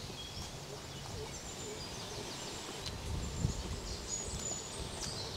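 Quiet outdoor background noise with a low, uneven rumble and faint, scattered high-pitched bird chirps.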